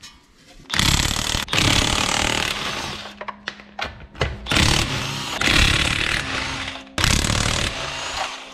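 Impact wrench hammering on a car's wheel lug nuts in three long bursts, the first starting about a second in.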